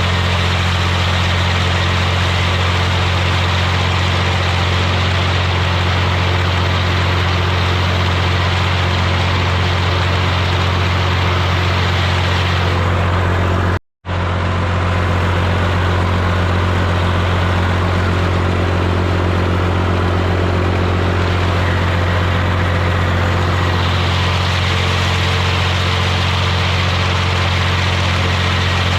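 Tractor engine running steadily at constant speed with a strong low hum; the sound drops out for an instant about halfway through.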